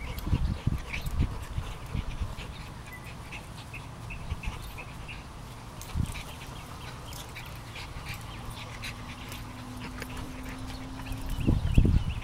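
A pug and a larger long-haired dog play-wrestling, with irregular short low grunts and growls and scuffling. The sounds come in bursts, loudest about a second in and again near the end, with one sharp burst about halfway through.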